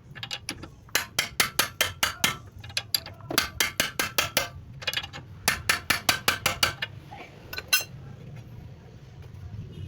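Metal hand tool working on a car shock absorber: several quick runs of sharp metallic clicks or taps, about seven a second, stopping and starting, with one louder single knock near the end.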